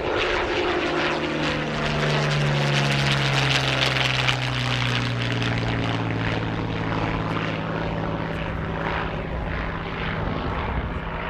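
Yakovlev Yak-3 fighter's piston engine and propeller at full power climbing away after take-off. Its pitch drops as it passes in the first couple of seconds, then it holds a steady drone that slowly fades as the plane recedes.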